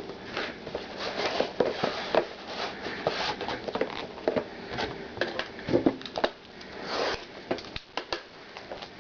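A box and packs of trading cards being opened and handled by hand: irregular rustling and crinkling with small sharp clicks.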